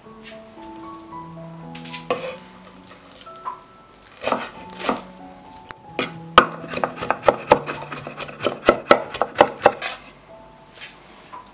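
Cleaver chopping fresh coriander on a wooden chopping board: a few separate strikes, then a fast even run of about five knocks a second, with soft piano music underneath.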